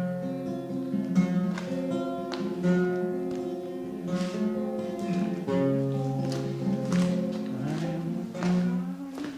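Acoustic guitar music: plucked notes and strums played in a flamenco-like style, running on steadily.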